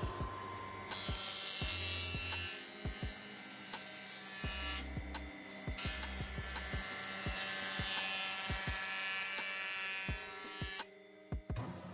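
Jointer running as a walnut slab is fed over its cutterhead, a steady buzzing whine with a hiss, under background music with a steady beat. The machine noise stops suddenly near the end while the music goes on.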